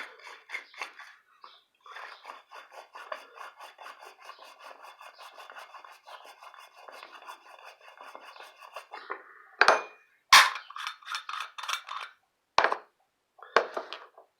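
Rapid, even scraping or rasping by hand, several strokes a second, that stops about nine seconds in. It is followed by four louder, sharp knocks or clatters.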